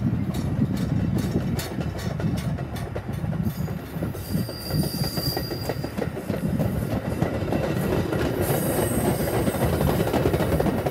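Metra bilevel commuter coaches rolling past close by: a steady rumble of wheels on rail with a clickety-clack over the rail joints, and a short high squeal from the running gear about four to five seconds in.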